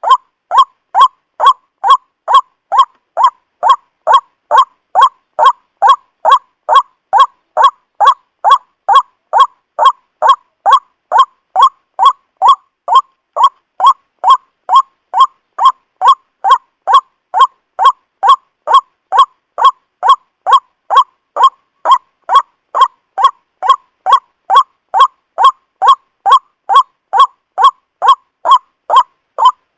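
Bird-lure recording of white-breasted waterhen (ruak-ruak) calls: one honking note repeated evenly about twice a second.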